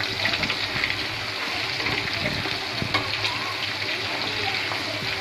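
Masala-coated prawns deep-frying in hot oil: a steady bubbling sizzle with fine crackles.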